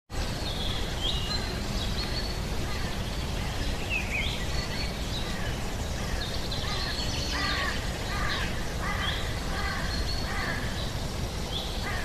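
Nature ambience of several birds calling over a steady low rumble: short high whistled notes that slide in pitch come and go throughout, and a run of harsher repeated calls about twice a second sets in from about seven to ten seconds in.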